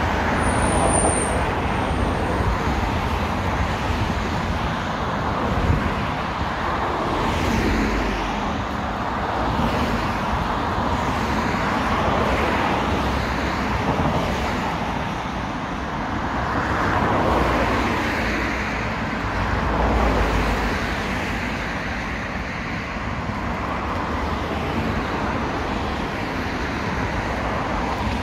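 Steady road traffic, with cars and heavier vehicles passing one after another and the noise swelling and fading as each goes by. A brief high-pitched squeal sounds about a second in.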